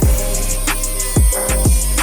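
Background music with a steady hip-hop style beat: deep kick drums and quick hi-hat ticks.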